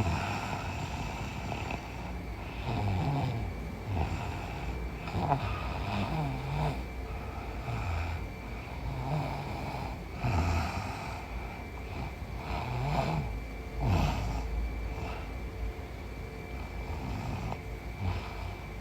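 A woman snoring in her sleep: an irregular run of snores, some sliding up or down in pitch, the loudest about ten and fourteen seconds in.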